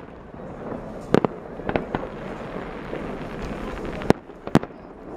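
Aerial fireworks shells bursting: sharp bangs just after a second in, two more around two seconds, and two loud bangs near the end, over a steady din of the display between them.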